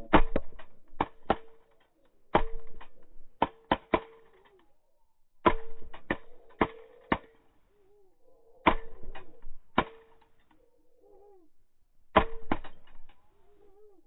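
Sharp clicks in five short rapid clusters, each followed by a brief steady tone and faint low warbling calls.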